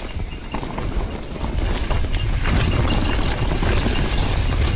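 Mountain bike ridden along a leaf-strewn dirt trail: the tyres roll over leaves and ground with a steady stream of knocks and rattles from the bike over bumps, under a low rumble that gets louder about two seconds in.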